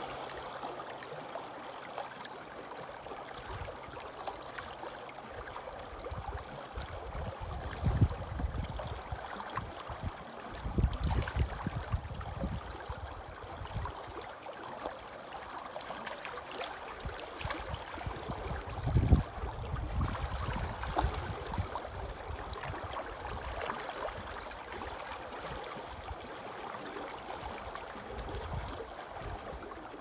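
Small waves lapping and splashing against shoreline rocks: a steady wash of water, with a few louder, deeper surges about a third and two thirds of the way through.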